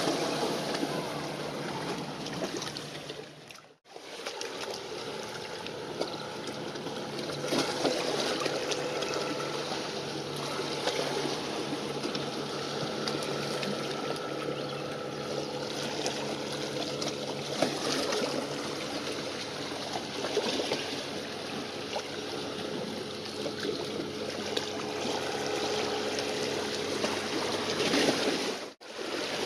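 Steady low hum of a coal-ash carrier ship's engines carried across the water, over the splashing of small choppy waves. The sound drops out briefly twice.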